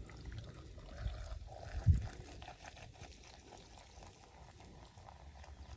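Sparkling mineral water poured into a glass of ice, with a short thump about two seconds in.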